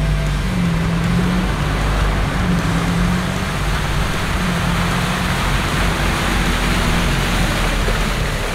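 A short-wheelbase 4x4 SUV's engine running as it drives through a deep muddy puddle, its tyres churning and splashing the water. The splashing grows heavier in the middle.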